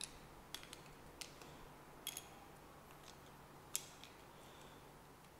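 A few sharp, irregular plastic clicks and taps as the parts of a Milton flask lid are handled and fitted together during reassembly, the loudest a little under four seconds in.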